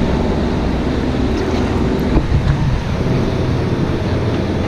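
Boat engine running steadily under wind buffeting the microphone and the wash of sea water.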